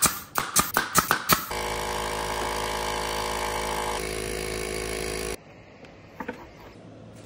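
Pneumatic nail gun driving several nails into plywood in quick succession, each a sharp crack. It is followed by an air compressor motor running with a steady hum for about four seconds, which stops abruptly.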